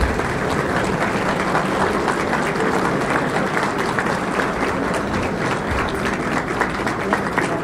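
An audience applauding, a dense steady patter of many hands clapping that keeps an even level throughout.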